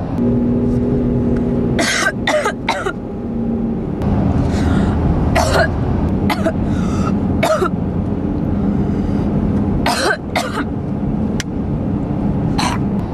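A person coughing and clearing their throat in several short bouts, from cigarette smoke filling the car, over the steady drone of the car's interior.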